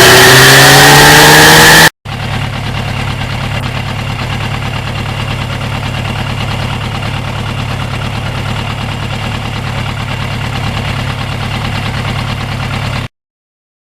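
Motorcycle engine revving very loud with its pitch climbing for about two seconds, then after a sudden break it idles steadily and evenly, cutting off abruptly to silence near the end.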